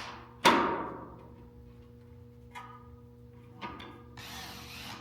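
A loud clank about half a second in that rings out over about a second, from screws and parts knocking against the stand during assembly. A couple of light clicks and a short rustle follow near the end.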